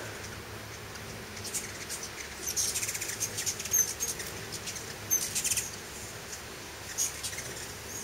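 Hummingbirds giving quick runs of very high chips and twittering chatter in several short bursts, the busiest stretch about two and a half to four seconds in.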